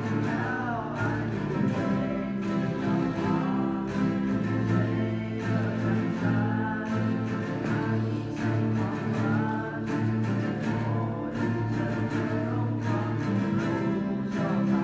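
Ensemble of acoustic guitars playing a piece together, steady strummed chords under a melody line.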